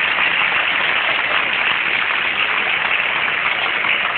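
Large arena crowd of basketball fans cheering and clapping, a loud, steady wall of noise.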